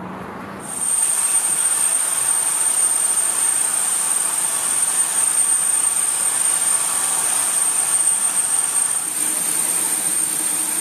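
Steam locomotive venting steam in a loud, steady hiss with a thin high whistle in it, starting suddenly about a second in.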